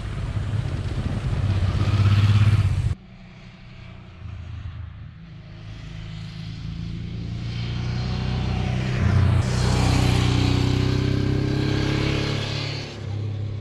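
Honda XL650V Transalp's V-twin engine on the road in two takes. The first cuts off sharply about three seconds in. In the second the motorcycle is heard approaching, growing steadily louder and peaking a few seconds before the end.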